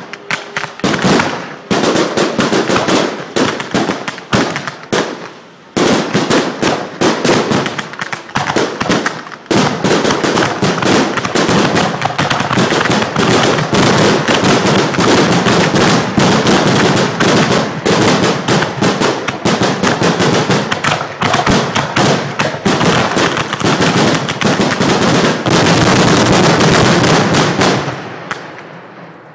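Fireworks display: a rapid, almost unbroken barrage of bangs and crackling that dies away near the end.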